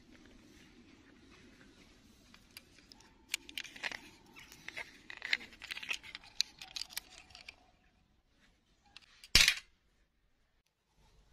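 Faint rustling and crackling of a hand handling a plastic doll dress among dry twigs and grass, with many small sharp clicks. About nine seconds in comes one short, loud burst.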